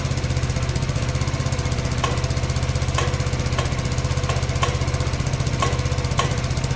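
Engine of an old Soviet police motorcycle idling steadily, with a few faint clicks over the top.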